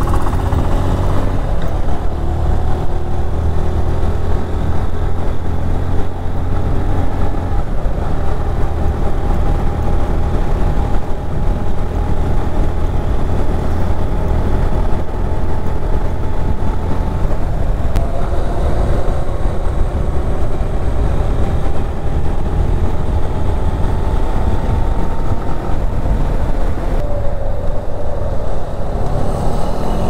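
Motorcycle being ridden along a road, its engine running at a steady pace under heavy wind rumble on the microphone.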